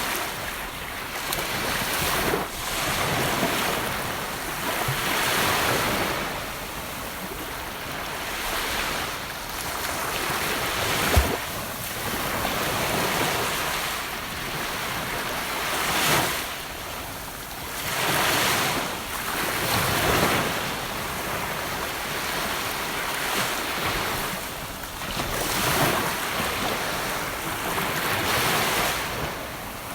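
Gentle ocean waves washing onto the shore, swelling and ebbing every few seconds. One brief sharp click about a third of the way in.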